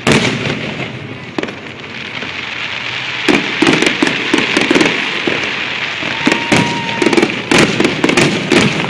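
Aerial fireworks display: a loud bang at the start and another a second later over steady crackling, then from about three seconds in a rapid barrage of sharp bangs.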